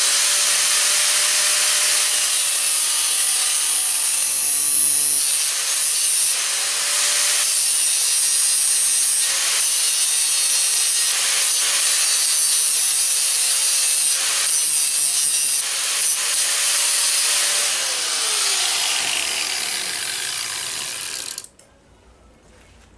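Angle grinder cutting into a steel hinge barrel clamped in a vise: the motor's whine is steady while the cutting noise rises and dips as the disc bites. Near the end the grinder is switched off and winds down, and the sound stops about a second and a half before the end.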